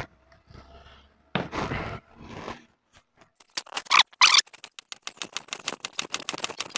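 Hands working pizza dough on a floured steel table: a couple of scraping noises, then a fast run of small clicks and taps as the dough is pressed and kneaded.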